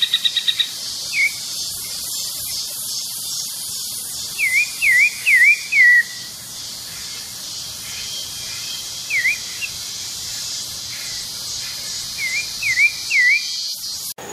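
Pale-breasted thrush singing short phrases of quick dipping whistled notes, in groups of one to four with pauses between. A steady high insect hiss runs underneath, and a fast pulsing trill stops under a second in.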